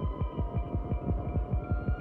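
Background music: a fast, low throbbing pulse of about eight beats a second under held synth tones, with a new higher note coming in near the end.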